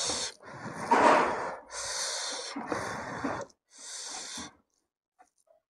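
Fingers squishing and mixing buffalo-meat curry and rice in a wooden bowl: five short, wet, noisy strokes, the loudest about a second in, then a pause.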